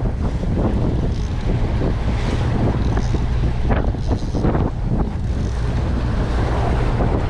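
Wind buffeting the microphone over the steady low rumble of a boat motor running at trolling speed, with water rushing in the wake.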